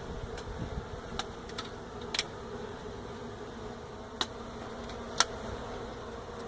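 Swarm of honey bees from an opened hive buzzing in a steady hum, with a few sharp clicks over it, the loudest about five seconds in.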